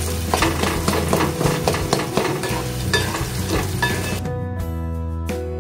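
Semolina with banana and dry fruits sizzling as it roasts in ghee in a metal kadhai, with a wooden spatula scraping and stirring in quick, repeated strokes. About four seconds in, the frying sound cuts off and background music takes over.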